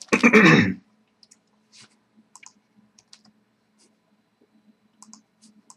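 Faint, scattered clicks and ticks of a foil hockey card pack being handled and opened, a dozen or so light clicks spaced irregularly.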